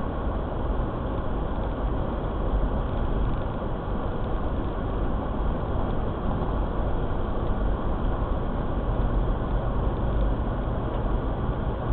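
Steady road and engine noise inside a moving car: a constant low rumble with no distinct events.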